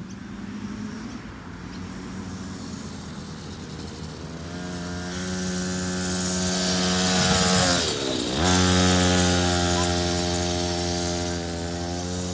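Small quad bike engine running, growing louder as the quad approaches, briefly dropping in revs and picking up again about eight seconds in, then fading as it moves away.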